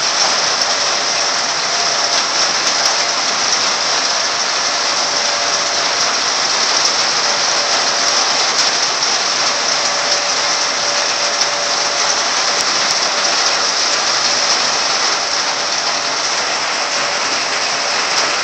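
Rain pouring steadily during a severe thunderstorm, an even, unbroken hiss.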